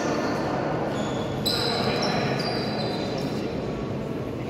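A basketball bouncing on a gym floor during a game, with high squeaks and indistinct chatter in the hall.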